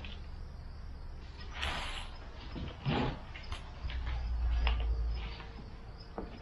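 Dry onion tops rustling and onions knocking against each other as they are picked up by hand from a pile, a few short rustles and clicks.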